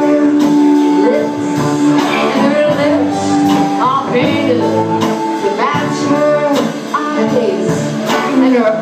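A live band playing a rock song, with singing over guitar.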